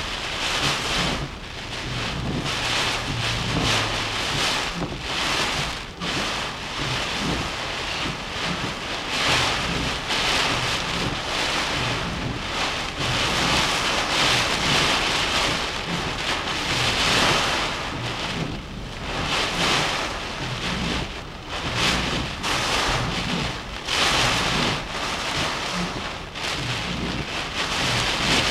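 Tropical-storm wind and driving rain: a loud, steady rush that surges and eases in gusts every few seconds.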